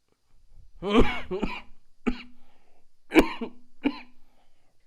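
A man coughing in two fits, five coughs in all: three about a second in, then two more about three seconds in. He is unwell.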